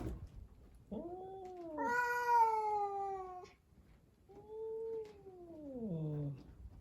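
A cat caterwauling: three drawn-out yowls, the middle one the loudest and longest, each sliding down in pitch at its end.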